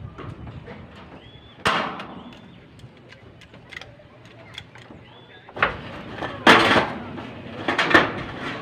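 Hand-tool work on sheet metal: a few sharp metallic knocks and clanks at irregular intervals. The loudest and longest comes about six and a half seconds in.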